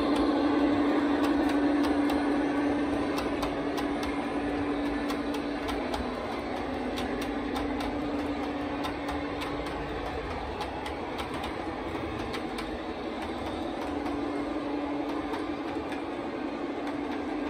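O gauge model diesel locomotive and its coaches running on track: a steady motor hum with many sharp clicks from the wheels crossing rail joints. The hum eases off in the middle and comes back louder near the end as the train passes.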